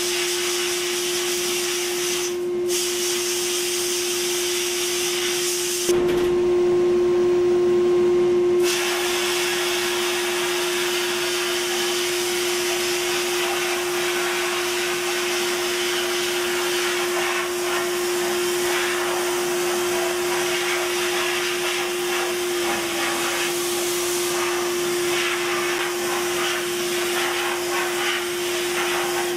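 Abrasive blast cabinet in use: a steady hiss of air and media from the hand-held blast nozzle as it strips a brake caliper bracket and then a brake rotor, over a steady hum. The hiss stops briefly about two seconds in and again for a few seconds around the six-second mark, then runs on.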